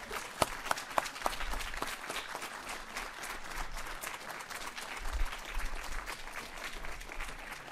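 Audience applauding: many people clapping steadily, with a few louder single claps near the start.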